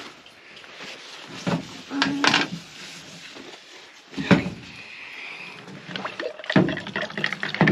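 A few separate knocks and thuds of things being handled and set down on a hard surface, the loudest about four seconds in. Near the end a quick run of light clicks and rattles comes as a hand works inside a plastic tumbler.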